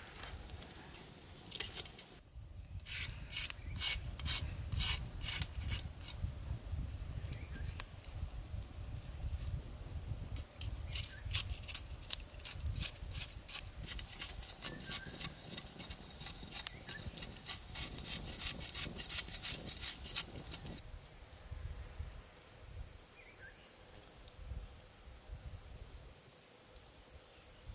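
Rhythmic scraping strokes, about three a second, in two spells: a short, louder one early and a longer one that stops about two-thirds of the way in.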